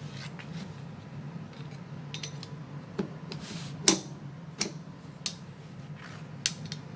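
Jaws and yoke of a steel gear puller clicking and clacking together as it is handled and its jaws are refitted: a handful of separate sharp knocks, the loudest about four seconds in, with a short scrape just before it.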